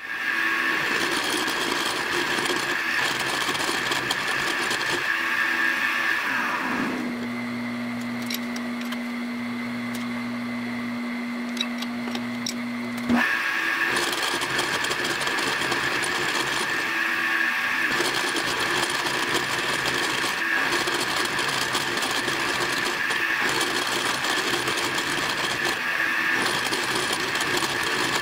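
Milling machine spindle running as its end mill cuts spline flanks into the steel end of a 1940 Ford driveshaft: a steady cutting whine. About seven seconds in it drops to a quieter, even hum with a single low tone, and the cutting sound comes back abruptly near the middle.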